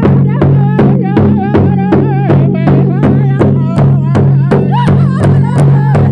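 Pow wow drum group: a large shared drum struck in steady unison beats, about three a second, with singers' high, wavering voices over it and a steady low hum underneath.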